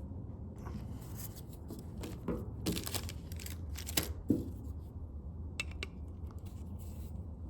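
Small metal door-handle parts and screws being handled: a run of light clicks and scrapes, the sharpest about four seconds in, over a steady low hum.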